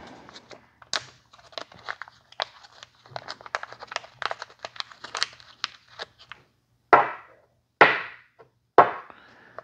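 Small parts and plastic packaging being handled by hand: a run of light clicks and crinkles, then three louder short crinkling sounds about a second apart near the end.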